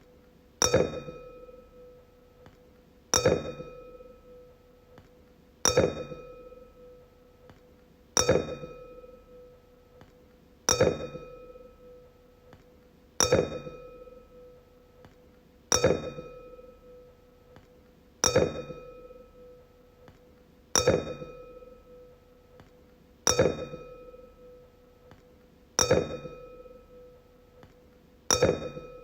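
A wine glass struck again and again, about every two and a half seconds, twelve times. Each strike rings with a clear, bright tone that fades away before the next.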